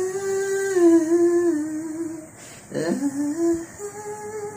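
Unaccompanied woman's voice singing long held notes from an isolated a cappella vocal track. Each phrase slides up from below into a sustained note, with a short break a little past two seconds before the second phrase.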